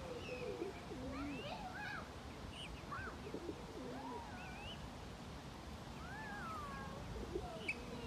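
Several birds calling at once: many short, rising and falling chirping notes overlapping one another, over a steady low background rumble.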